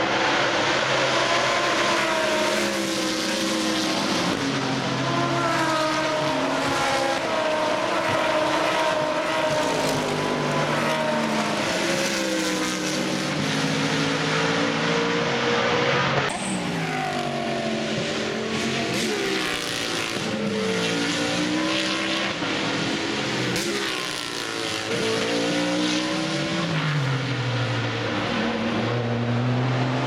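A pack of GT3 race cars passing at racing speed, several engines overlapping, their revs repeatedly climbing and dropping through gear changes. The sound changes abruptly about halfway through to another group of cars.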